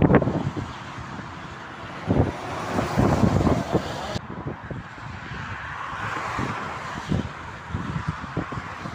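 Motorway traffic noise with wind buffeting the microphone in irregular low thumps. The high hiss drops off abruptly about four seconds in.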